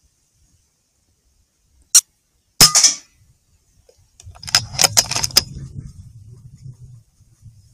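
A single shot from a .22 FX Impact M3 PCP air rifle a little over two and a half seconds in, a short sharp crack with a brief ring, with a lone click just before it. About two seconds later comes a quick run of metallic clicks over a low rumble that fades away.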